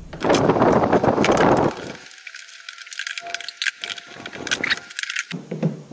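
Loud rustling and scraping for about a second and a half, then a run of light metallic clicks and rattles: a screwdriver and small parts being handled while the fuel shutoff is unscrewed from a Honda EU2000i generator's plastic housing.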